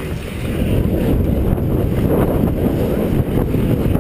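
Wind buffeting the microphone of a head-mounted GoPro Hero HD as the skater glides, a steady low rumble that grows louder about half a second in.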